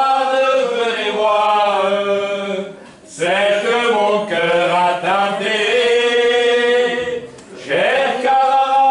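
A voice singing unaccompanied: long, drawn-out sung phrases of about three seconds each, with short breaks for breath about three seconds in and about seven seconds in.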